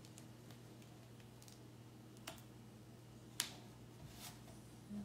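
A few faint, sharp clicks and taps, about a second apart, from a plastic craft transfer sheet being handled and positioned on a chalkboard. A low steady hum runs underneath.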